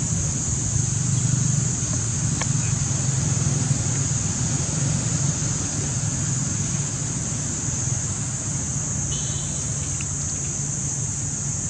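Steady outdoor background noise: a low rumble with a constant high-pitched hiss over it, and one brief faint high squeak about nine seconds in.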